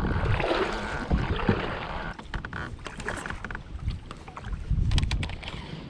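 Water sloshing around a fishing kayak's hull, with a few sharp clicks and knocks: a cluster about two to three seconds in and another about five seconds in.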